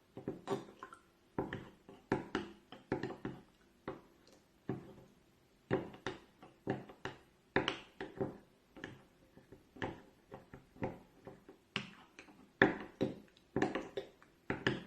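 A spoon stirring a honey, lemon, ginger and turmeric mixture, knocking against the sides of the container in irregular taps, two or three a second.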